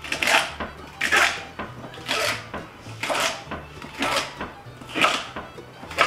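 A chef's knife slicing through celery stalks onto a wooden cutting board, one cut about every second.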